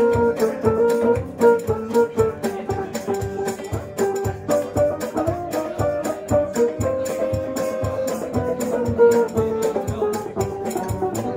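Live acoustic band playing an instrumental passage: acoustic guitars strumming a steady rhythm under a held, sustained melody line.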